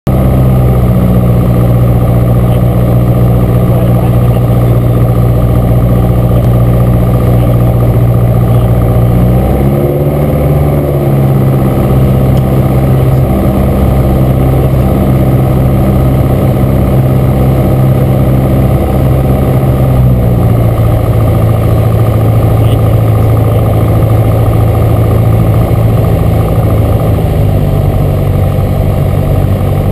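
Piper PA-28-151 Warrior's four-cylinder Lycoming engine and propeller droning steadily, heard from inside the cockpit on final approach. The engine note wavers about ten seconds in, then drops in pitch around two-thirds of the way through and again near the end as power comes back for the landing.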